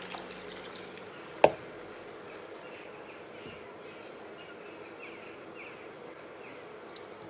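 Stock pouring from a jug into a pot of mutton, trailing off at the start, then one sharp knock about a second and a half in. After that there is only a low, even background with faint short ticks.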